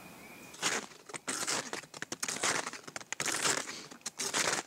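Snowshoes crunching through crusty snow, one crunch with each walking step, starting about half a second in.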